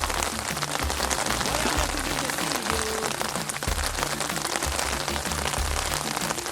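Heavy rain falling steadily: a dense, even hiss of drops with no letup.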